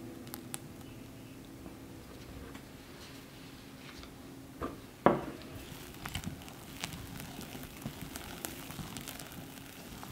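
Kitchen handling sounds while baking: scattered light clicks and rustles, with a sharp knock about five seconds in, the loudest sound.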